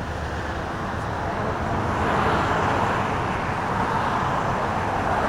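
Steady road and tyre noise of a car driving on a highway, swelling and easing slightly.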